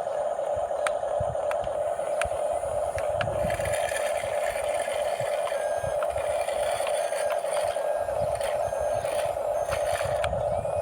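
Small RC bulldozer's electric drive motors and gearbox whining steadily, with scattered clicks from the plastic tracks and blade.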